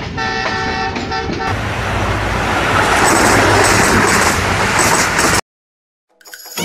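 A horn sounds for about a second and a half. A loud rushing noise then builds and cuts off abruptly a little over five seconds in.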